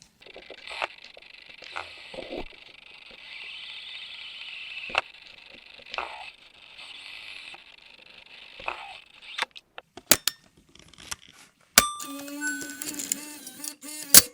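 Sony DCR PC115E MiniDV camcorder's mechanism heard up close: a steady high whir broken by several sharp clicks for most of the stretch, then a few louder clicks, and near the end a busy run of rapid ticking over a low hum.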